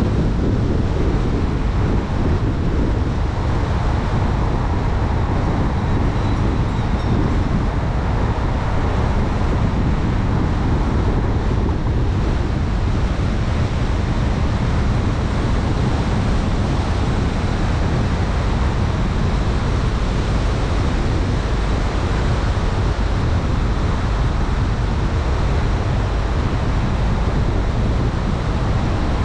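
Steady wind and road noise from a car driving along, an unbroken low rumble with a fainter hiss above it and no pitched engine tone.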